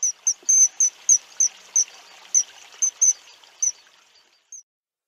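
A bird repeating a short, shrill, high-pitched call about a dozen times, unevenly spaced at two or three a second, over a faint hiss. It all cuts off about four and a half seconds in.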